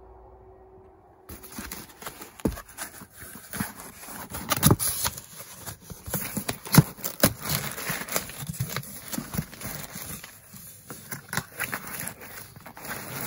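Cardboard shipping box being opened and handled, its flaps scraping and the green plastic bubble wrap inside crinkling. The dense, irregular clicks and rustles start about a second in.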